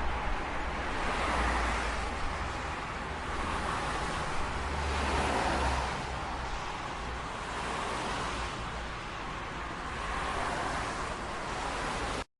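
Street traffic noise: a steady wash of cars with several passing vehicles swelling and fading, and a low rumble underneath. It cuts off suddenly near the end.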